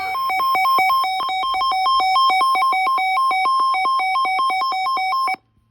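Electronic emergency alert tone announcing a severe thunderstorm warning on a weather radio broadcast. It switches rapidly back and forth between a lower and a higher pitch for about five seconds, then cuts off abruptly.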